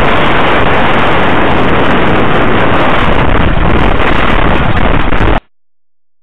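Wind buffeting the microphone of a camera on a moving motorcycle, mixed with engine and road noise, very loud and distorted; it cuts off suddenly about five and a half seconds in, leaving near silence.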